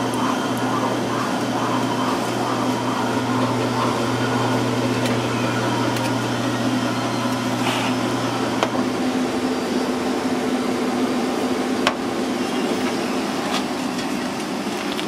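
Steady whirring hum of kitchen machinery at a sandwich counter. A deeper hum underneath stops about nine seconds in, and there are a couple of light clicks.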